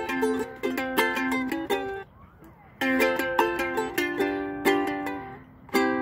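Ukulele strummed in quick chords. The strumming stops for nearly a second about two seconds in, then resumes, and a last chord is struck near the end and left to ring.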